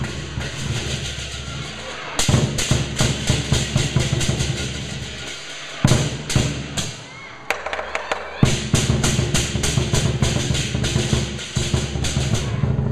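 Lion dance percussion: a large Chinese drum beaten in a fast, driving rhythm with crashing hand cymbals. The playing eases off briefly a little past the middle, then comes back in full.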